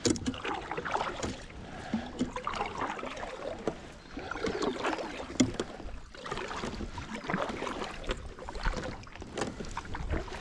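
Kayak being paddled: the double-bladed paddle dipping and pulling through the water in repeated strokes, with splashing.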